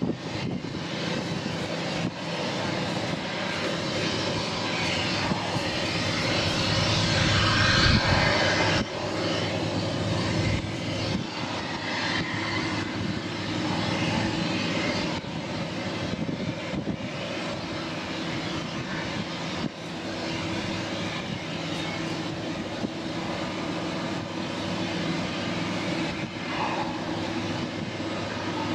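Customs patrol boat's engines running at speed: a steady drone over a rushing noise, swelling to its loudest about eight seconds in and then settling.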